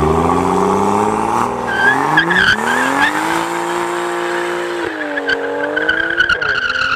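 Car engine revving hard with the tyres squealing: a burnout. The engine note climbs over the first few seconds, holds high, dips briefly and climbs again under a steady tyre squeal.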